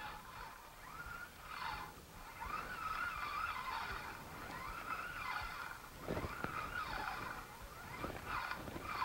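Spinning reel being cranked at an even pace during a lure retrieve, giving a wavering whir, with a few dull knocks of handling in the second half.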